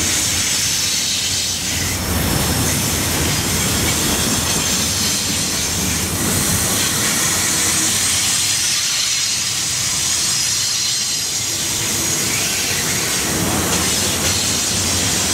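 A freight train's cars rolling past at close range: steady wheel-on-rail noise with a faint high wheel squeal and some clicking over rail joints.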